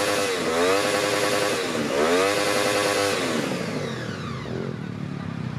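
Sport motorcycle engine held at high revs during a burnout, its rear tyre spinning against the ground. The revs dip and climb back twice, then fall away about three seconds in as the throttle is let off, leaving the engine running lower.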